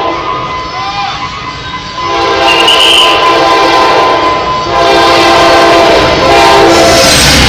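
Train horn sounding in long steady blasts, one starting about two seconds in and another about five seconds in, over the rumble of a train.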